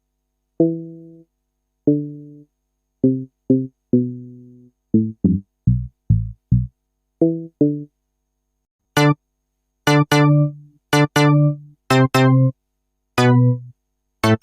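Synthesized keyboard notes played one at a time in a simple tune with short silences between them, each note fading out. About nine seconds in the tone changes to brighter, sharper-edged notes.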